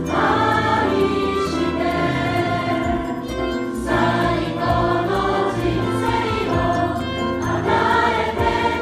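Music: a choir singing with instrumental accompaniment.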